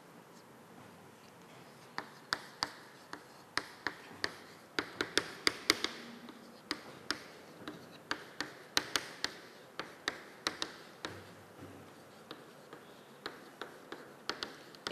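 Chalk writing on a chalkboard: a run of sharp, irregular taps with light scratching between them as letters are written by hand, starting about two seconds in.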